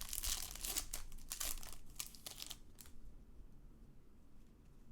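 Foil wrapper of a trading card pack crinkling as it is torn and handled, a dense run of crackles for about two and a half seconds, then quieter.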